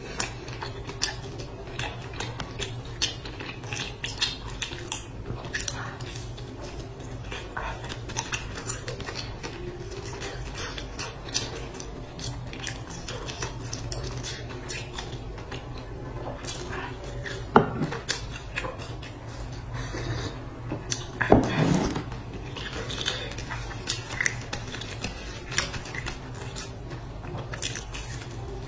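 Close-up eating sounds: biting and chewing fried, sugar-dusted pastries, with a steady run of small sharp clicks and two louder bites about two-thirds of the way through, over a low steady hum.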